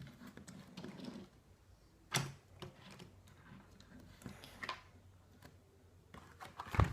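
Scattered light clicks and taps of toy car packaging being handled, with a louder knock near the end.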